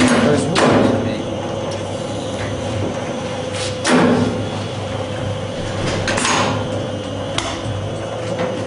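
Z Group R-17 manual edge banding machine running with a steady hum while edge banding is glued onto a workpiece, broken by about five sharp clacks spread through.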